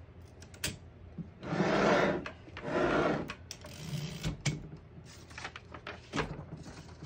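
1938 Woodstock typewriter's carriage mechanism being adjusted by hand: a few light clicks and two sliding, rasping runs, each about a second long, starting about a second and a half in.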